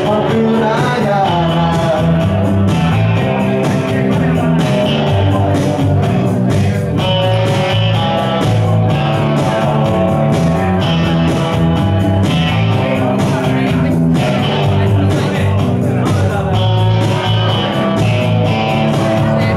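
Live rock music from an electric guitar and an electric bass played through amplifiers, the bass holding a steady line of low notes under the guitar.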